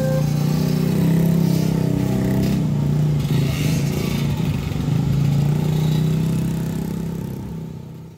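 Many motorcycles and scooters pull away together across a railway level crossing as the barrier lifts, their engines running and revving in a dense drone. The sound fades out near the end.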